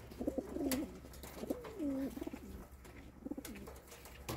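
Pigeon cooing in three low, wavering bouts, with a couple of sharp clicks, one about a second in and one at the end.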